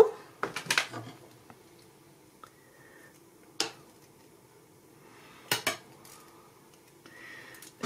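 Scattered sharp metallic clicks and clinks from handling pliers, a steel ruler and heavy rebar tie wire while gripping and bending the wire: a cluster of taps about half a second in, one about three and a half seconds in, and a quick pair around five and a half seconds.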